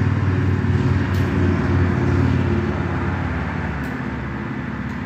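A motor running steadily with a low hum, fading slowly over the last couple of seconds.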